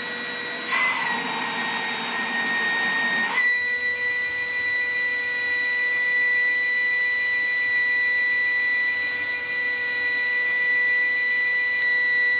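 Electric ducted fan of an RC jet running at speed: a steady high whine with a louder rush of air over it for the first few seconds, then an even whine. The fan is powered from an 11.1 V LiPo battery through a gum wrapper completing the circuit, drawing about 25 amps DC.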